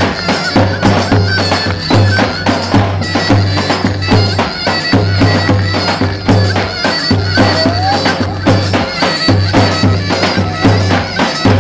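Loud traditional Turkish folk dance music: a shrill, reedy wind instrument playing over a steady drum beat.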